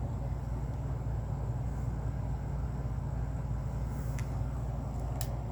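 Steady low rumbling background noise, with a couple of faint light clicks near the end.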